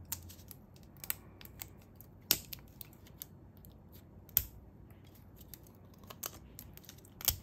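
Sharp little snaps and clicks, a few seconds apart, as fine pliers break and pick plastic support material off a 3D-printed model part. The loudest snaps come about two, four and seven seconds in.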